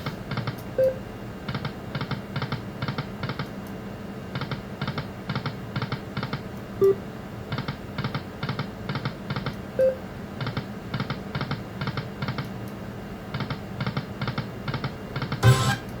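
Lightning Link Best Bet slot machine spinning: its reel-stop ticks come in quick runs of about five or six, one run every two to three seconds as spin follows spin, with a few short beeps in between.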